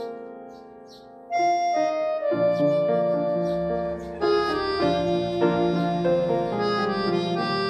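Background music: a keyboard tune of held notes and chords, quiet for the first second and then coming back in louder and fuller.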